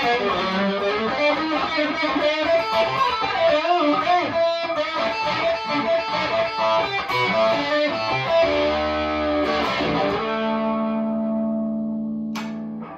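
Electric guitar, a stock Chibson Les Paul Custom on its middle pickup setting, played through a Marshall DSL40 combo amp: quick single-note lines for about eight seconds, then chords, the last one left to ring and fade out.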